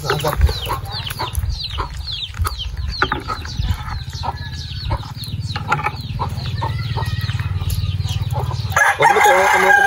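Chickens clucking, short calls one after another, with a louder drawn-out call near the end, likely a rooster crowing. A steady low rumble runs underneath.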